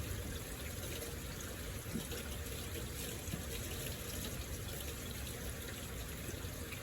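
Steady rain falling, with scattered faint drips.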